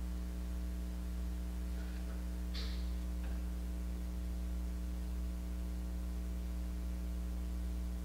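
Steady low electrical hum, with a faint short hiss about two and a half seconds in.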